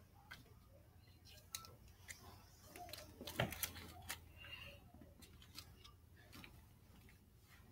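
Faint scattered clicks and rustles of a person moving about close to the microphone, with one louder knock about three and a half seconds in.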